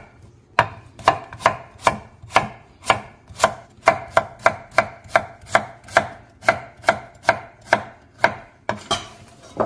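Chef's knife slicing a white radish on a wooden cutting board, each stroke ending in a sharp knock on the board, about two strokes a second in a steady rhythm, with a few looser knocks near the end.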